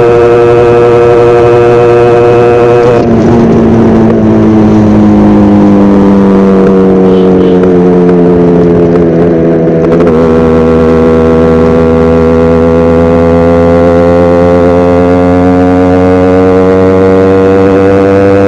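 Yamaha RX100's two-stroke single-cylinder engine running on the road. About three seconds in its note drops abruptly and then slowly sinks. About ten seconds in it picks up and climbs steadily in pitch.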